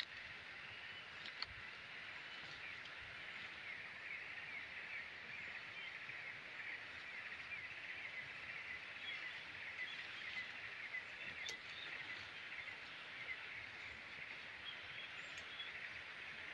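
Forest ambience: a steady, high-pitched chirring chorus of wild creatures, a fast run of short repeated notes, with a faint click about eleven and a half seconds in.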